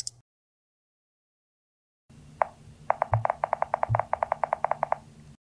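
Keyboard typing sound effect: a quick, even run of about twenty key clicks, roughly eight a second, with two low thumps beneath them.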